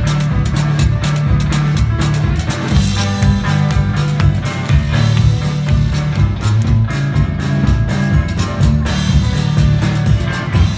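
Live country-blues band playing loud, driving music: a hollow-body electric guitar with a strong, pulsing bass line, over washboard and drum kit beats.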